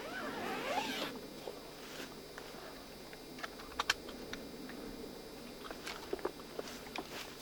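Rustling and handling noise of hunting gear and clothing, with a rasping slide in the first second and scattered sharp clicks and taps after it.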